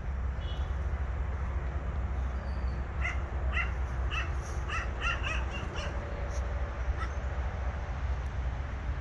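A crow cawing in a run of about eight short calls, roughly two a second, over a steady low rumble.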